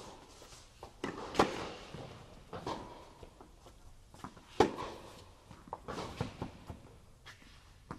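Tennis balls struck by racquets and bouncing in a baseline rally on an indoor court: sharp pops with the hall's echo, the loudest about halfway through.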